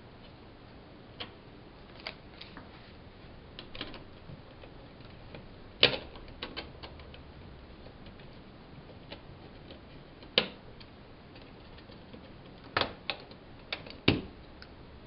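Hands working at the wires of a plastic thermostat wall base with a paper sheet of wire labels: scattered sharp clicks and taps, the loudest about six, ten and fourteen seconds in.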